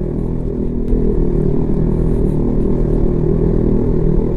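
Honda CB150X's single-cylinder engine running steadily under load, with slight wavers in pitch over a low rumble.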